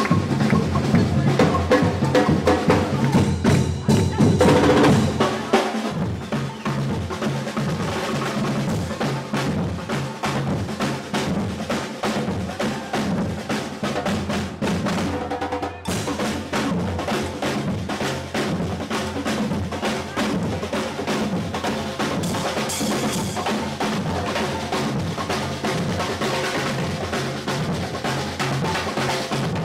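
Street percussion band playing a steady, fast rhythm on large bass drums and snare drums, somewhat louder in the first five seconds.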